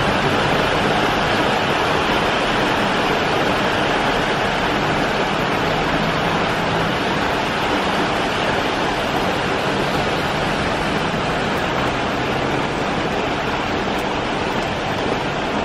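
Heavy downpour falling on a wet street and rooftops: a steady, dense hiss of rain.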